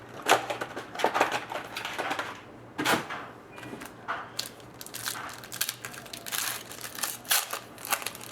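Hobby-box trading cards and their wrapping being handled: a run of crinkling, rustling and scraping noises with small clicks, and one sharp click about three seconds in.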